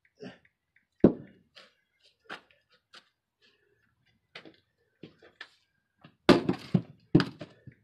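Firewood splitting with an axe on a chopping block: a loud knock about a second in and a few light knocks and clicks, then near the end the axe strikes the wood hard, followed by a second hard knock as the wood gives.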